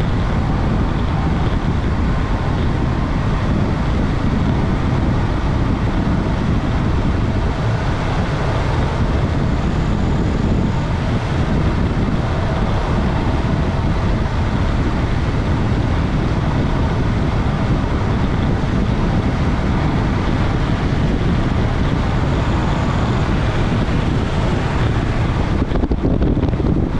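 Loud, steady wind rush over the camera's microphone on a road bicycle coasting downhill at about 40 to 50 mph.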